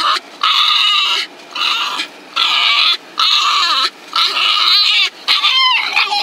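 A dog whining in a run of about six high-pitched squeals with short pauses between them, the last ones wavering up and down in pitch, close up inside a car.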